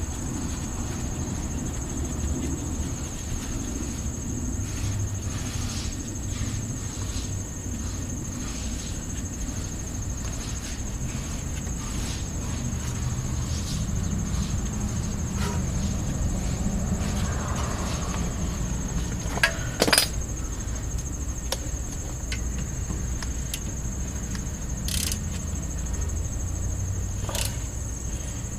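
Crickets chirring steadily over a low rumble, with a few scattered sharp clicks from hand work on the rear brake caliper; the loudest clicks come about twenty seconds in.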